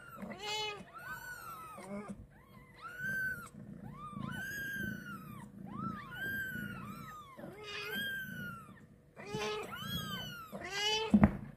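Newborn kittens mewing over and over: high-pitched, arching cries about one a second, with a few lower meows among them near the end. A sharp knock sounds near the end.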